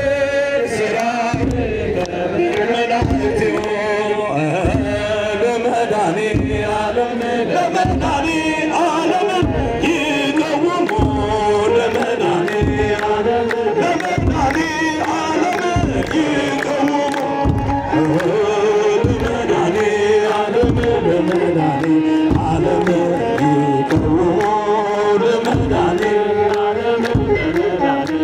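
Ethiopian Orthodox mezmur hymn chanted by many voices, kept in time by a deep drum beat about once a second.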